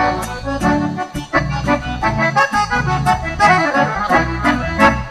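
Two piano accordions playing a lively gaúcho instrumental passage, backed by acoustic guitar and regular drum hits: the closing bars of the song.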